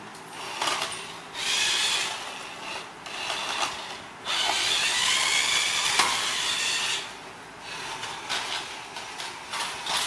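Toy remote-control car's small electric motor and gears whirring in several bursts as it is driven, the longest lasting about three seconds near the middle, its whine bending up and down in pitch.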